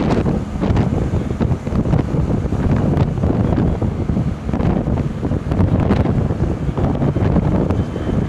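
Strong wind buffeting the microphone, a loud rumbling noise that surges and dips unevenly.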